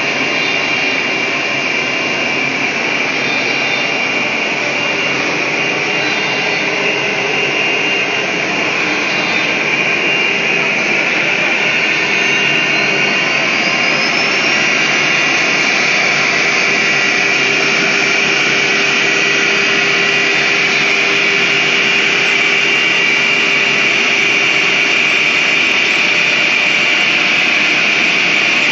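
Wood CNC router running steadily: the spindle's high whine over the noise of the cutter working wood, with a faint rising tone about halfway through.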